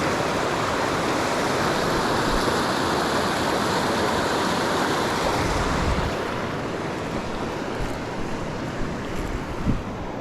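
Steady rushing of moving river water, easing somewhat after about six seconds, with one small knock near the end.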